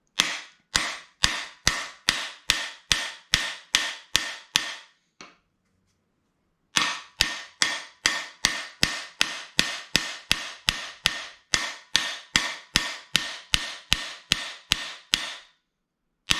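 Steady hammer blows on a cam bearing installer's driver bar, driving a new camshaft bearing into its bore in a 350 small-block Chevy block. The strikes come evenly, about three a second, each with a short metallic ring, in two long runs with a pause of about a second and a half between them.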